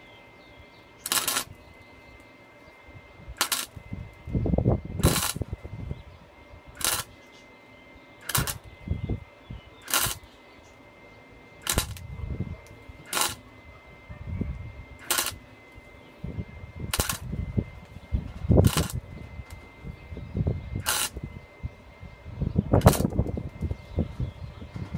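Small gasless flux-core MIG 130 welder striking its arc in short crackling bursts, about thirteen of them a second or two apart: stitch-welding a fish-mouth steel tube joint.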